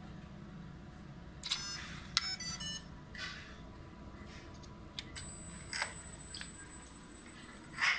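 Electronic beeps from radio-control car electronics being powered up: one beep about a second and a half in, then a quick run of short beeps at several pitches. A few clicks follow, and from about five seconds in a thin, steady high whine.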